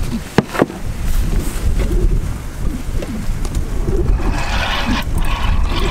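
Wind rumbling on the microphone, with two sharp knocks about half a second in as a wooden panel is handled. Near the end there is rustling from a nylon rain jacket and a plastic water jug being pulled from a cabinet.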